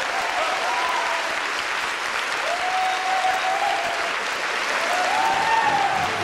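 Large audience applauding steadily, with drawn-out cheers from the crowd rising over it twice.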